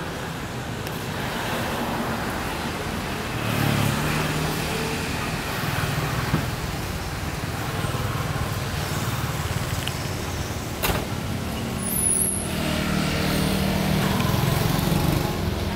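Street traffic: a steady wash of road noise with vehicle engines swelling as they pass, once about four seconds in and again near the end. A single sharp click comes about eleven seconds in.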